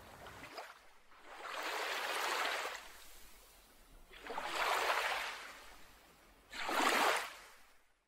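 Ocean waves washing in three surges, each swelling and then fading away.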